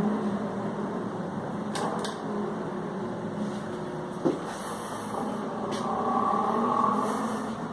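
Ceiling fan running with a steady whirring hum, with a few sharp clicks and one short knock about halfway through.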